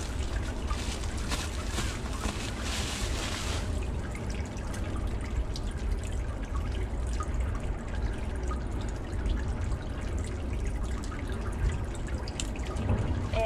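Plastic courier bag crinkling and rustling as it is cut with scissors and pulled open, densest for the first three or four seconds. After that only scattered light rustles and clicks over a low steady rumble.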